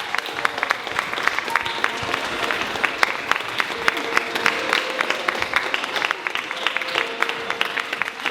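Audience applauding, a dense run of irregular hand claps, with faint voices beneath.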